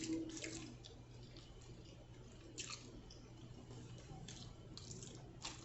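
Faint close-up chewing of food, with a few short wet mouth clicks and smacks.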